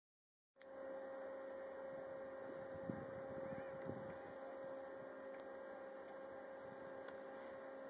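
A faint, steady electrical-sounding hum at one pitch over a light hiss, starting just after a half-second dropout to silence.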